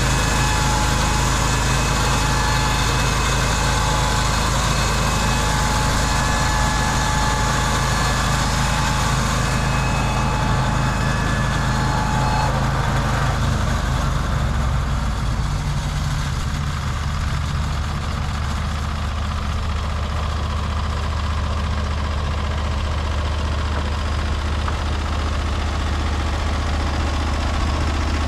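Norwood LumberPro HD36V2 portable band sawmill running steadily, its engine note joined by a high, steady whine that stops about halfway through, after which the engine settles to a lower, steady tone.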